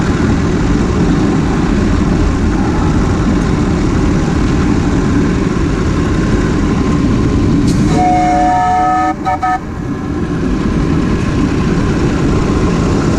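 Ridable live-steam locomotive running along the track with a steady running noise. A little past halfway its steam whistle sounds a chord of several pitches in two blasts, together lasting about two seconds.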